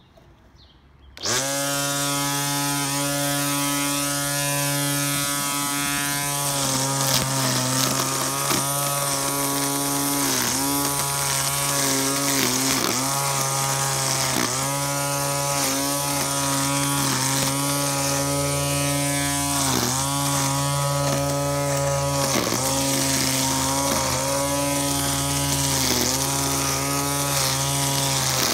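Hyper Tough 20V cordless 13-inch string trimmer (HT21-401-003) starting about a second in and then running with a steady electric-motor whine as its spinning line cuts grass and clover. The pitch dips briefly and recovers every two to three seconds.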